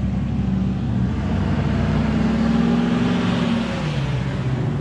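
Car engine running, with a swell of road noise that rises about midway and fades again, as of a vehicle passing.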